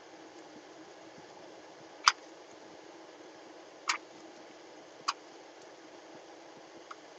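Fingertip taps on a tablet touchscreen: three short sharp clicks, about two, four and five seconds in, and a faint one near the end, over a faint steady hum.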